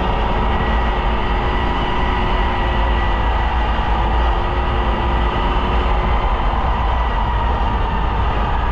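Polaris Indy snowmobile running steadily at a constant engine speed while riding along the trail, with a strong low rumble underneath.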